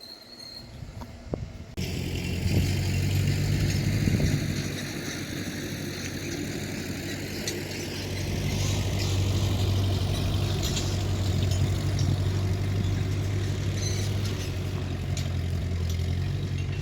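Old tractor's engine running steadily, a low drone that jumps louder about two seconds in and swells a little later, as the tractor works its hydraulic forks to lift a log; a few light clanks.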